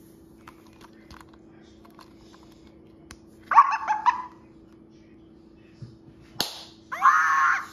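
Interactive monster toy giving two short, high-pitched electronic vocal outbursts: one about three and a half seconds in and a louder one near the end. A sharp knock comes just before the second, and there are faint taps of handling earlier, over a faint steady hum.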